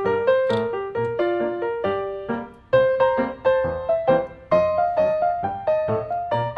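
Background piano music: a light tune of short, evenly paced notes, each struck and fading, about three to four a second.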